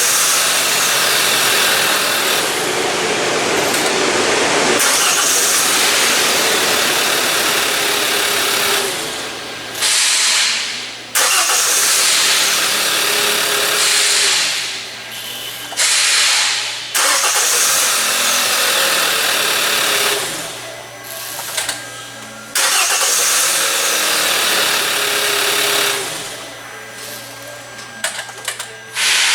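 Hyundai Elantra GT engine being started again and again, several start-and-run stretches separated by short pauses. It fires and runs each time, so the intermittent no-start does not show up.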